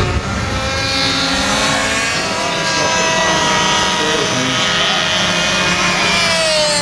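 Small RC model fun-fighter aircraft engine buzzing at high revs in flight, its pitch drifting as the plane moves about and falling near the end as it passes.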